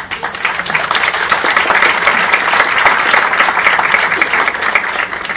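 Audience applauding: dense, steady clapping from a room full of people, building up over the first second.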